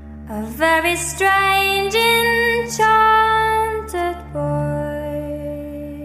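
Music: a woman singing a slow, drawn-out melody in long held notes over a steady low drone. The voice enters just after the start and ends on a long note that fades away.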